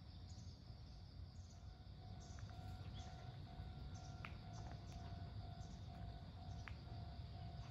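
Faint railway level-crossing warning bell ringing a steady repeated tone, about two strokes a second, starting about a second and a half in: the signal that a train is approaching. Crickets chirp throughout over a low rumble.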